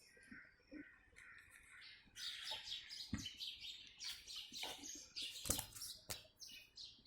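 Birds chirping and calling in quick repeated notes, with a few sharp knocks about three, five and a half and six seconds in.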